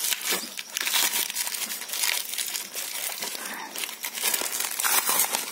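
Torn corrugated cardboard packaging being pulled apart and crumpled by hand: a dense, irregular run of crackling and crinkling.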